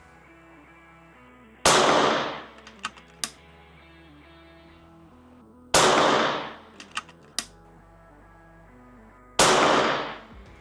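Three shots from a Karma Red Panda PCP air rifle, about four seconds apart. Each is a sharp crack with a short echoing tail, followed by a few light clicks.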